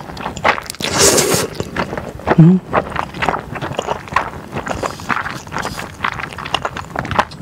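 Close-miked eating: slurping thick glass noodles and chewing, with wet mouth sounds and many small clicks. There is a noisy slurp about a second in and a short hummed 'mm' about two and a half seconds in.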